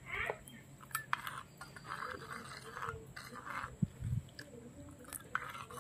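Steel spoon stirring in a small clay pot as cornflour slurry is poured in: faint, short scrapes with a few light clinks of metal on clay.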